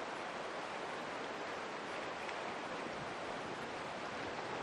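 Steady, even hiss of open sea ambience around a kayak on calm water, with no distinct splashes or knocks.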